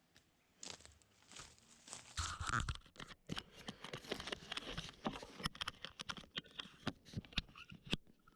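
A felled tree coming down: wood cracking and tearing, a heavy crash about two and a half seconds in as it hits the ground, then many branches snapping and crackling.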